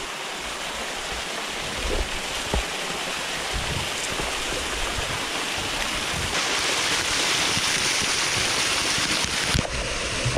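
Rushing water in a canyon, a steady hiss that grows louder about two-thirds of the way through, with a few faint low knocks.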